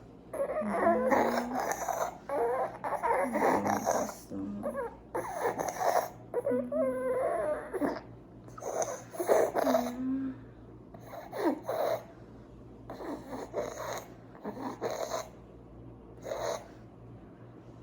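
A 5-month-old infant congested with phlegm fussing in short bouts of whimpering and grunting, about one every second or two, with a snoring, rattly breathiness. This is laboured breathing from a COVID-19 chest infection.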